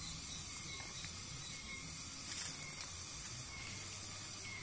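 Steady high-pitched hiss that pulses faintly about once a second, with a brief rustle about two and a half seconds in.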